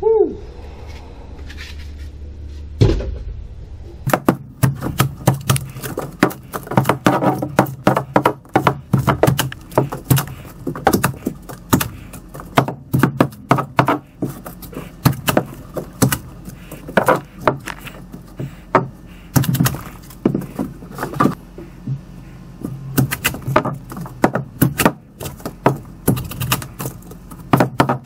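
Hammer blows chipping old foam and debris out from under a fiberglass boat's dash: one heavy thump about three seconds in, then rapid, irregular strikes several a second, with thuds and rattling debris, until the end.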